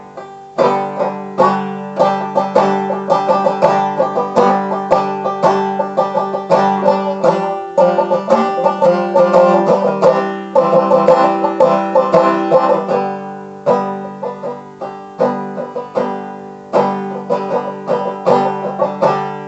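Banjo playing an instrumental break, a rapid stream of picked notes with a country, bluegrass-style lilt.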